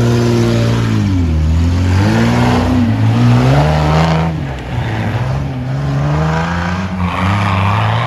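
Off-road buggy engine revving hard under load as the vehicle churns through water and mud. The pitch drops about a second in, rises again, falls away at around four and a half seconds, then climbs steadily toward the end.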